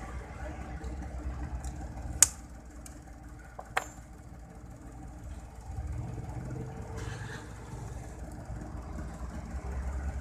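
Two sharp clicks, about two seconds in and again a second and a half later, from a metal tool prying at the opened phone's plastic frame and internal parts, over a steady low rumble of vehicle engines.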